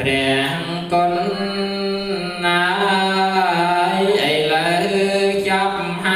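A man chanting a Khmer Buddhist chant in long, drawn-out notes that waver slightly in pitch, with a short breath-break between phrases.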